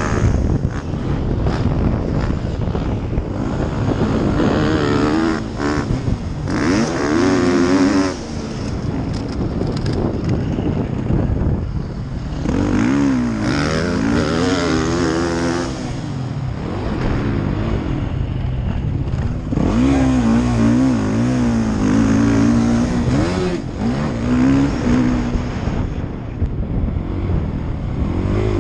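2016 Suzuki RMZ450's single-cylinder four-stroke engine racing around a motocross track, revving up and dropping off again and again as the rider opens and closes the throttle through jumps and corners.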